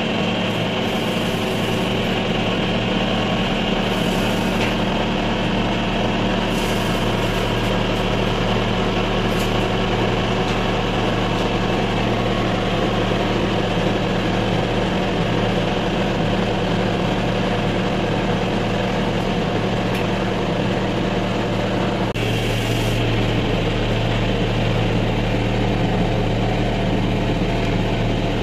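Commercial cotton candy machine running: its half-horsepower electric motor spins the heated spinner head at speed with a steady hum made of several tones.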